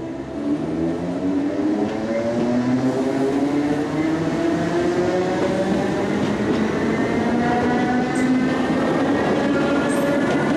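DART electric commuter train accelerating, its traction motors giving a whine of several tones that climbs steadily in pitch. A few short clicks from the wheels come near the end.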